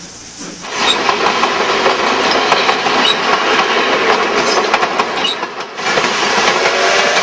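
Geared steam locomotives working under load: a dense, continuous clatter of exhaust and running gear with many quick ticks. It jumps to full loudness about a second in and drops out briefly near the six-second mark before picking up again.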